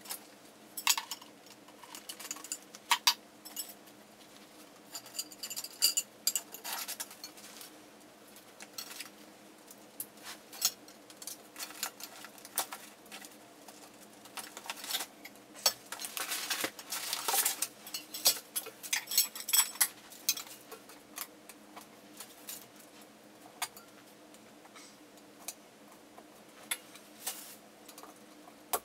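Light-tent frame tubes being pushed into plastic three-way corner connectors and handled: irregular clicks, knocks and light clatter, with a denser stretch of rustling and clatter a little past halfway.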